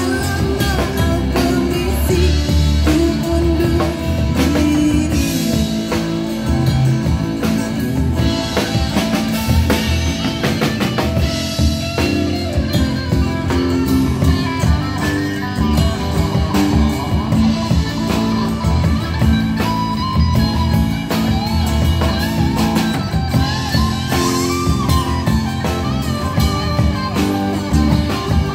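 A live rock band plays through a PA: drum kit, electric guitar and amplified acoustic guitar, with a woman singing into a microphone.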